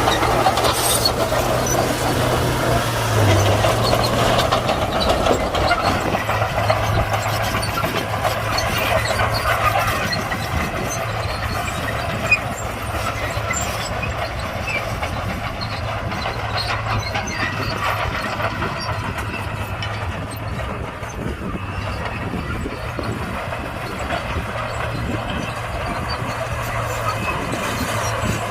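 Komatsu D41P crawler bulldozer working: its diesel engine runs with a steady low drone under the metallic rattle of its steel tracks, easing off a little partway through.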